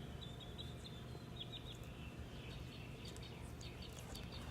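Faint, scattered short bird chirps over low steady background noise.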